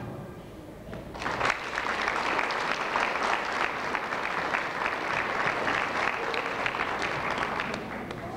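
Audience applauding, breaking out about a second in and fading near the end.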